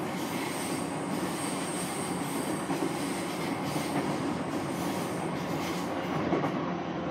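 Running noise heard inside a Keihin-Tohoku Line commuter train car at speed: a steady rumble of wheels on rail with faint regular clicks, and a thin high squeal above it.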